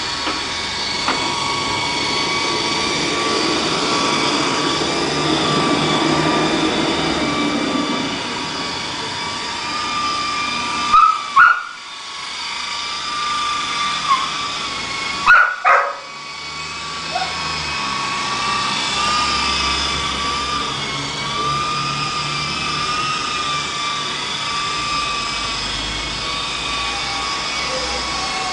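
Walkera HM 53-1 radio-controlled helicopter running, a steady high whine of its motor and rotors that wavers slightly in pitch as it flies. Two brief louder surges come about eleven and fifteen seconds in.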